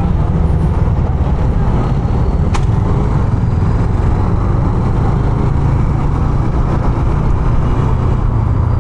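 Honda CB150F motorcycle's single-cylinder engine running steadily while riding through traffic, under a constant low rumble. A brief sharp click comes about two and a half seconds in.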